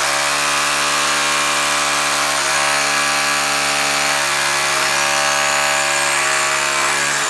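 Cordless SDS Plus rotary hammer, a Milwaukee 2712-20, drilling into a concrete foundation with a 3/16-inch masonry bit, running steadily at full speed, easing off right at the end.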